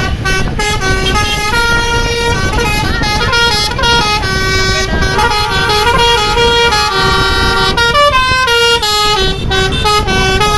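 Bus 'telolet basuri' multi-tone air horn playing a long, unbroken tune of short stepping notes, sometimes two notes at once, over a low rumble from the vehicle.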